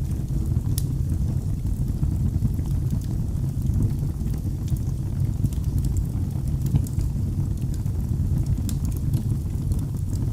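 Fire burning in a fireplace: a steady low rumble of flames with scattered small crackles and pops.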